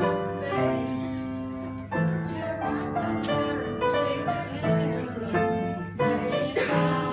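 Piano playing a run of chords and notes, each struck and left to ring.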